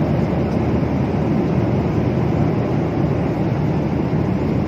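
Steady low cabin noise of an airliner in flight, the even rush of engines and airflow heard from a passenger seat.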